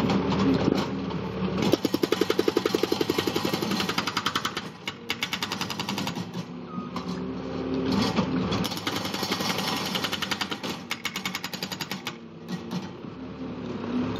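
Hydraulic breaker on a skid steer hammering in rapid, even blows. It runs in two bouts, about two seconds in and again about nine seconds in, over the running machine.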